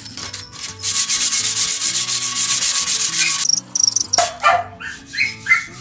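Sanding down hardened body filler on a metal bike frame: a loud, fast, scratchy rasp from about a second in until about three and a half seconds, then a few shorter scrapes, smoothing the filled rust pits.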